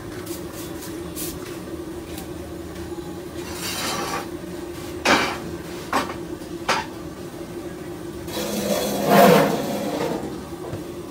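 Roadside food-stall background: a steady hum, three short sharp clinks a little past halfway, and a louder rush of noise that swells and fades near the end.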